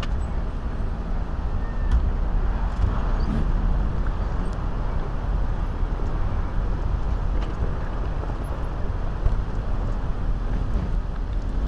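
Steady street traffic noise of cars moving through a city intersection, with a constant low rumble.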